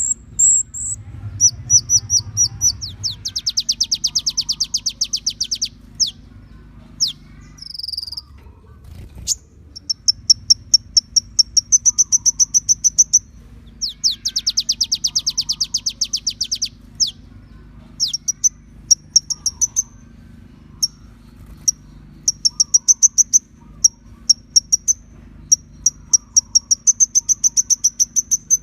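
Birdsong training recording for a kolibri ninja: bursts of high, sharp chirps and fast, buzzing trills, with long rapid runs about three seconds in and again near the middle, over a steady low hum.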